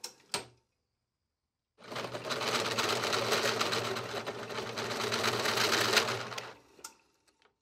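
Drill press driving a large twist drill through stainless steel square tube, enlarging a pilot hole. It cuts with a steady, rapid chatter over a running motor hum, starting about two seconds in and winding down shortly before the end.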